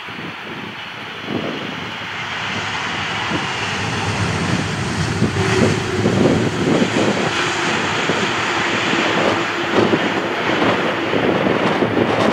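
Airliner's engines passing, a rushing noise that grows louder over the first few seconds and then holds, with a low steady hum through the middle.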